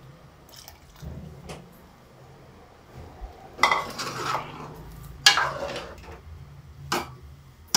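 Metal ladle stirring a thick dal and pumpkin curry in an aluminium pot, scraping and knocking against the pot's side. The two loudest scrapes come about three and a half and five seconds in, with lighter knocks after.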